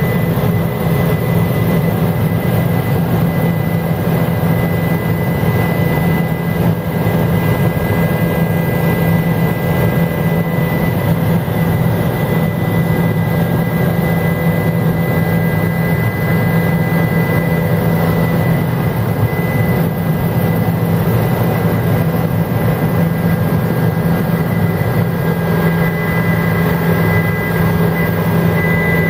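Helicopter in steady cruise heard from inside the cabin: a loud, even drone of rotor and engine with a thin, steady high whine above it.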